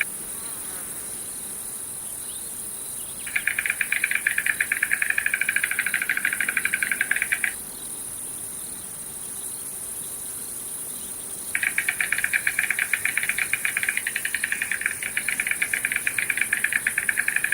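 Insects trilling: bouts of rapid, even pulsing several seconds long, one starting about three seconds in and stopping around seven and a half, another starting past eleven seconds, over a steady high-pitched buzz.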